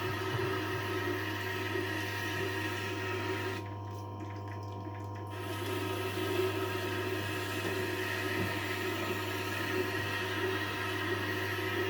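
Tormek T-8 wet sharpening machine running with a steady motor hum while a kitchen knife is ground on its water-wetted stone, giving a hissing, watery grinding sound. The hiss breaks off for about a second around four seconds in, then resumes.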